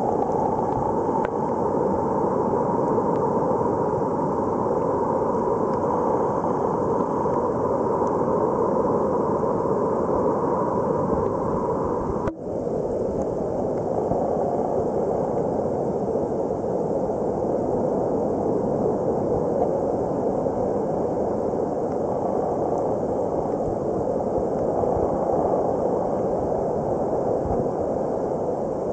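Steady, muffled rushing water noise heard through a camera submerged in shallow sea water, with a brief dropout about twelve seconds in.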